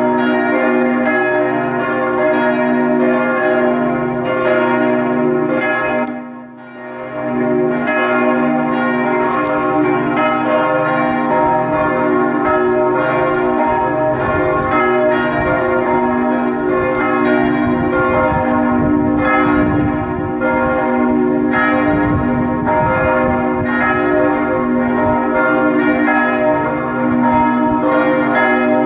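The bells of St. Cyriakus provost church in Bottrop ringing together in a full peal, their strikes overlapping into a continuous, loud ringing. The sound dips briefly about six seconds in, then carries on.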